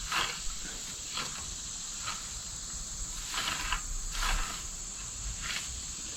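Steady high-pitched chorus of insects, with short rustles roughly every second.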